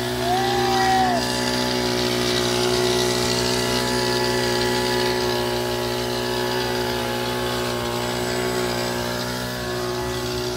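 Motorised knapsack sprayer's pump running with a steady, even hum as it sprays the goats. A goat bleats once, about half a second in.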